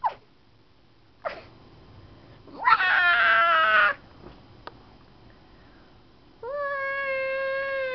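High-pitched meow-like cries: two brief ones, then a louder wavering cry about three seconds in, and near the end a long held note that slowly falls in pitch.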